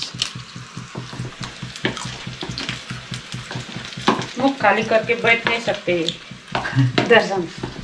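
Besan-battered onion fritters (pyaji) deep-frying in hot oil: a steady sizzle dotted with many small crackling pops.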